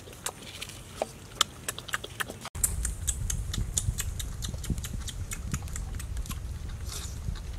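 A person chewing with sparse, sharp smacking clicks. About two and a half seconds in, the sound cuts to several puppies eating together: rapid smacking and chewing clicks over a low rumble.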